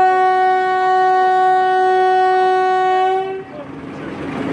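Steam whistle of a small narrow-gauge steam locomotive blowing one long steady note, cutting off a little over three seconds in.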